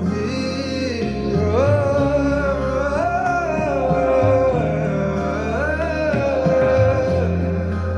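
Instrumental interlude of a slow Hindi film ballad. A wordless melody glides up and down over sustained bass notes, mixed as 8D audio that pans around the listener.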